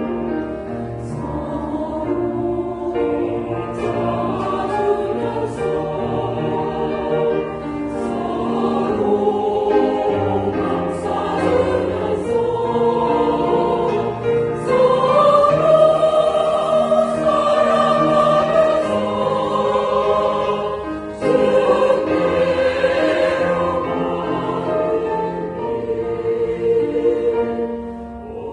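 Church choir singing a sacred anthem in held, swelling chords, growing loudest a little past halfway and easing off near the end.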